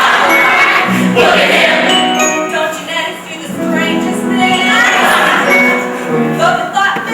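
Cast ensemble singing a musical-theatre number together over instrumental accompaniment.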